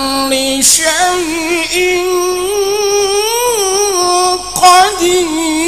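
Male qari chanting the Quran in the melodic tilawah style through a microphone and PA, with long, ornamented held notes. The chant is broken twice by a short breath, under a second in and again about four and a half seconds in.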